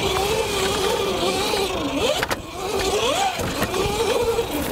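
Cake Kalk INK electric motocross bike's motor whining as it is ridden hard on a dirt track, the pitch rising and falling with the throttle and sweeping up sharply a couple of times. A single sharp knock comes a little after two seconds in.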